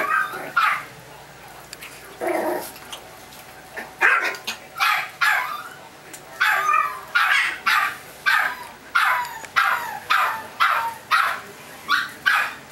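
Chihuahua puppies barking in short, high yips as they play: a few barks at first, then from about four seconds in a steady run of barks roughly every half second.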